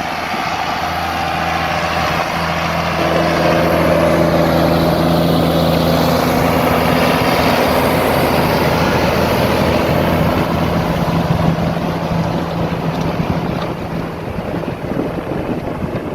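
Diesel tractor engine running steadily as the tractor comes close by, growing louder over the first few seconds and easing off again near the end.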